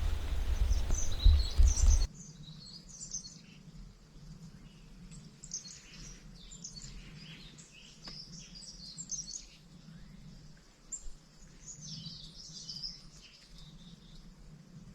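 Small birds chirping on and off in short, high notes. For the first two seconds a loud low rumble covers them, and it cuts off suddenly.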